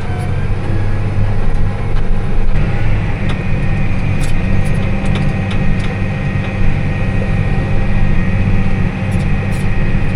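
Tractor engine running steadily while pulling a round baler through hay windrows, heard from inside the cab. A thin higher whine joins about two and a half seconds in, with a few light clicks.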